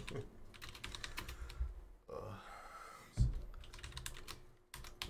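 Typing on a computer keyboard: a run of quick key clicks, with a dull thump about three seconds in.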